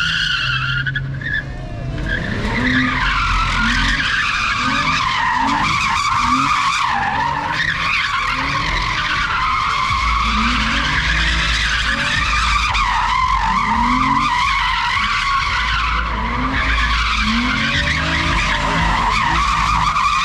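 Car tyres squealing without a break as a car spins donuts, with its engine revving up again and again underneath the squeal.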